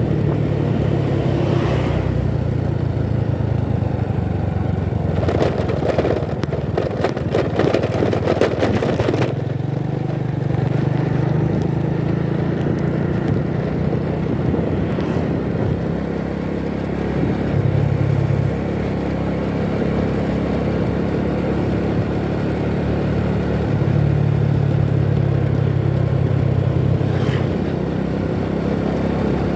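Motor vehicle running on the road: a steady low engine drone with road noise, its pitch stepping up and down a few times with engine speed. A rattling clatter runs for a few seconds near the start.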